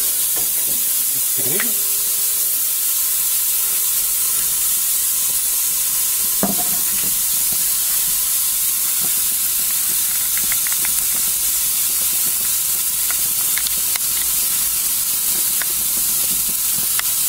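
Yogurt-marinated, spatchcocked chicken sizzling steadily on a hot grill grate at about 200 degrees, with a few faint clicks.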